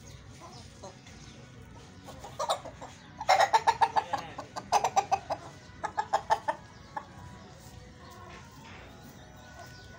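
Kuchi chickens clucking in three quick runs of rapid clucks, starting about three seconds in.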